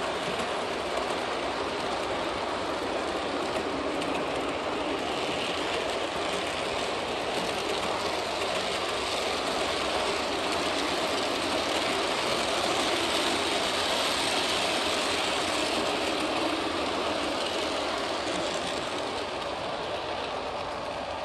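Long G-scale model freight train rolling past close by: the steady noise of many freight-car wheels running along the track.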